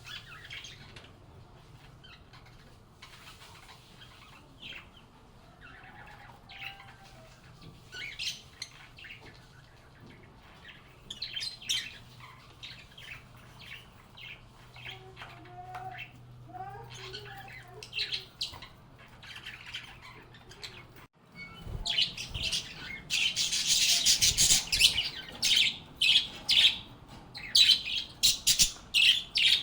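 A flock of lovebirds (Agapornis) chirping and squawking in short, sharp calls. The calls are scattered at first over a faint steady low hum. After a brief break about two-thirds of the way through, the chirping becomes much denser and louder.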